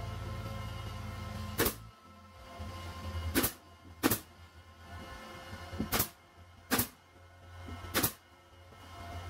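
Pneumatic brad nailer firing six times at uneven intervals, each shot a sharp snap as it drives a brad through a wooden edge strip into plywood.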